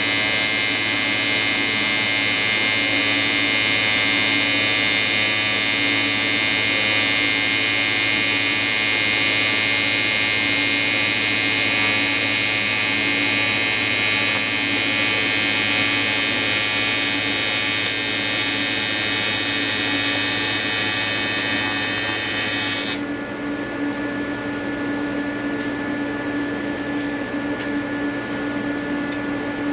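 AC TIG welding arc from an Everlast 325EXT on advanced square wave, buzzing steadily. About three quarters of the way through the arc stops, leaving a lower steady hum with a few faint ticks.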